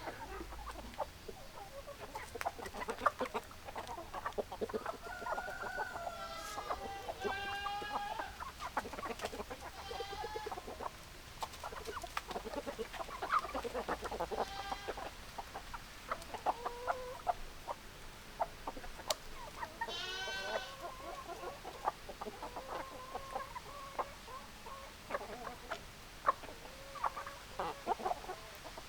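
Chickens clucking, many short clucks throughout, with several longer, higher drawn-out calls from the flock.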